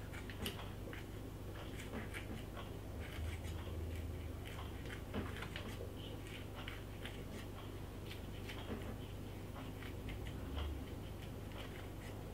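Kitchen scissors snipping a scotch bonnet pepper into pieces, a run of quiet, irregular clicks and crunches, over a steady low hum.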